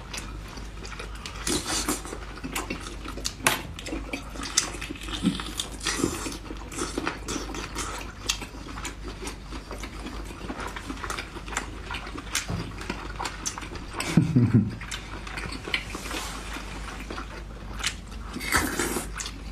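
Close-up eating sounds of cooked lobster and abalone: mouth and lip sounds with scattered sharp clicks of shell, skewer and utensils against a glass dish. A short low vocal 'mm' comes about fourteen seconds in.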